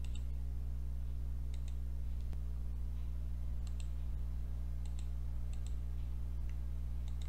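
Computer mouse clicking about six times, several clicks in quick pairs, over a steady low electrical hum.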